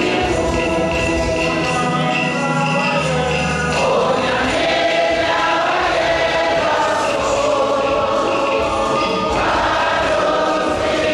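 A choir singing a hymn in long held chords, moving to new notes about four seconds in and again near the end.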